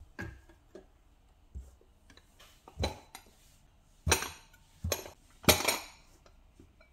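Small white ceramic pots with lids and ceramic bowls clinking as they are set down in a lined drawer: several light clinks, with the loudest, briefly ringing ones about four and five and a half seconds in.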